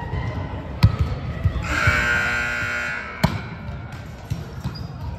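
Ball thuds echoing in a gym hall: two sharp hits about a second in and about three seconds in, with a few lighter knocks between. A steady high-pitched tone is held for over a second in the middle.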